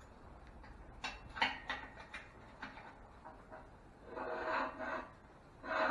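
Scraping and knocking from work on a rusty, seized Ford flathead V8 block: a few short knocks and rattles, then two longer rasping scrapes near the end.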